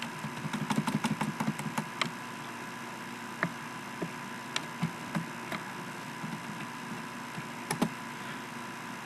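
Computer keyboard and mouse clicking, with scattered short clicks that are densest in the first two seconds. Under them runs a steady faint electrical hum with a thin constant tone.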